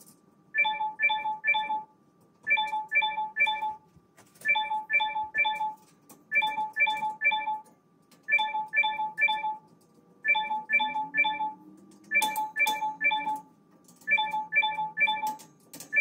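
A repeating electronic chime: a quick run of three or four identical bright, marimba-like notes about every two seconds, with near quiet between the runs. A faint sharp click falls about twelve seconds in.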